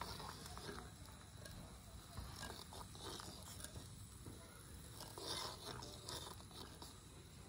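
Faint, irregular small clicks and scrapes of a tiny spoon stirring lentil curry in a miniature clay pot over a small twig fire.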